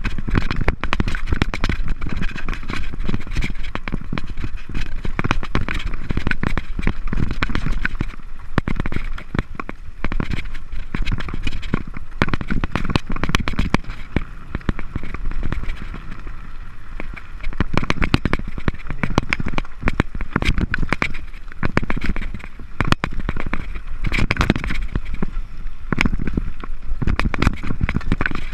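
Mountain bike riding fast down a rocky trail: a continuous clatter and rattle of the tyres and bike over loose stones, dense irregular knocks over a steady low rumble.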